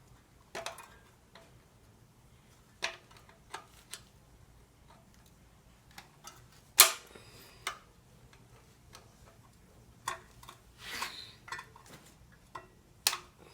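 Scattered clicks and metal clinks of hand tools and small parts as the carburetor is taken off a Mantis tiller, with a sharp clack about seven seconds in and a brief scraping rustle around eleven seconds.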